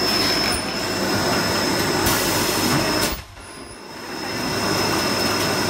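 Automated film-cutting machine running: a steady mechanical hum of its rollers and drives with a thin, high, steady whine. The noise drops off sharply about three seconds in and swells back up over the next second or so.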